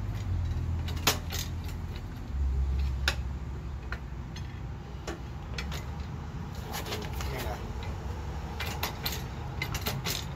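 Irregular metal clicks and clanks of a seized Allis-Chalmers tiller mule drive being wiggled by hand on its shaft to work it loose, the sharpest knock about a second in, over a low rumble.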